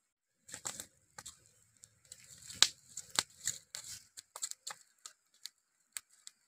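Wood campfire embers and charcoal being stirred and raked with split-bamboo tongs: irregular crackles, clicks and rustling, densest from about half a second to four seconds in, then sparser sharp clicks.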